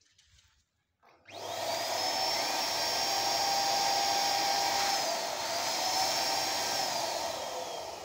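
Electric balloon pump running, filling a gold foil letter balloon: a steady motor whine with rushing air that starts about a second in, dips briefly midway, then slows near the end.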